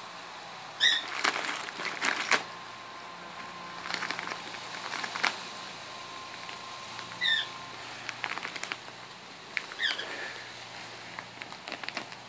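Wrapping paper crinkling and tearing in irregular rips as an Alaskan Malamute tears open a gift with its teeth and paws. A few short high squeaks come through about a second in, near the middle and again later.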